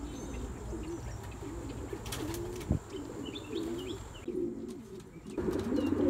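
Racing pigeons cooing in the loft, low rolling coos repeating one after another, with a few faint higher bird chirps and a brief knock near the middle.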